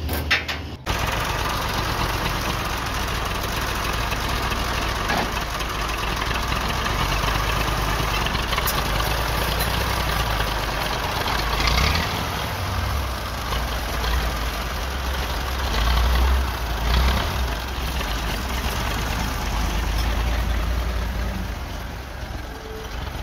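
Massey Ferguson 240 tractor's three-cylinder diesel engine running steadily with its tappets freshly set. It grows louder for a moment twice as the tractor is driven off.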